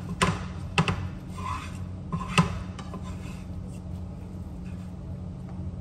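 Spatula scraping and stirring scrambled eggs in a frying pan, with several sharp scrapes in the first two and a half seconds and then softer rubbing. A steady low hum runs underneath.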